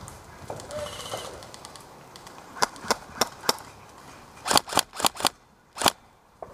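Airsoft guns firing single shots: four sharp snaps about a third of a second apart, then after a short pause five more in quick succession.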